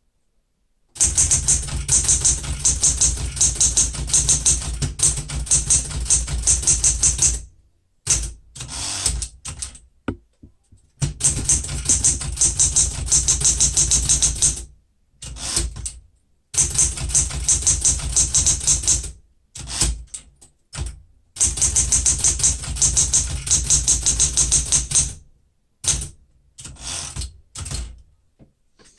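1970 Smith-Corona Super Sterling manual typewriter being touch-typed fast: long runs of rapid keystrikes in bursts of a few seconds, broken by brief pauses and a few scattered strikes.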